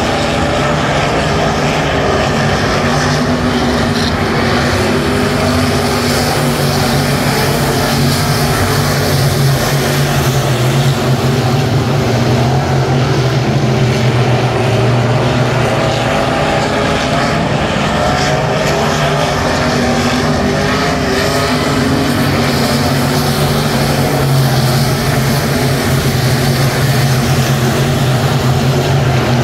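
USRA B-Modified dirt-track race cars running at race speed, a loud, continuous engine sound whose pitch rises and falls slightly as they circle the track.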